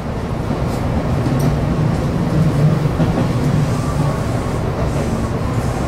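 Tobu Urban Park Line electric train running along curved track, heard from the cab: a steady low rumble with a few faint clicks.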